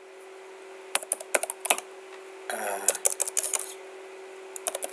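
Computer keyboard keys clicking in short bursts of typing, over a steady low electrical hum.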